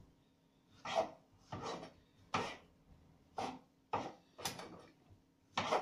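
Kitchen knife cutting tomatoes on a cutting board: a series of short cutting strokes, about seven, unevenly spaced.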